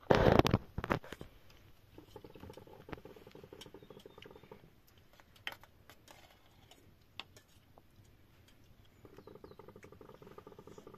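Clatter of metal cookware and utensils: a loud clatter in the first second, then two spells of rapid fine scraping a few seconds long, with a few sharp clicks between them.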